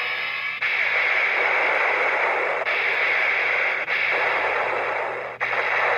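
Electronic finisher sound effects played through the small built-in speaker of a C.S.M. Kamen Rider Den-O toy belt. The sound is loud, harsh and hissy, like radio static, and comes in several back-to-back segments with brief breaks between them.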